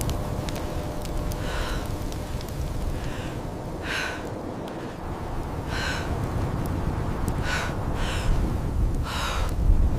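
A person breathing hard, with short sharp breaths or gasps every second or two, over a steady low wind rumble.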